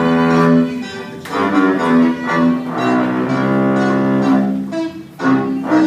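Song's instrumental passage between vocal lines, led by bowed strings playing a slow line of held notes in the cello range.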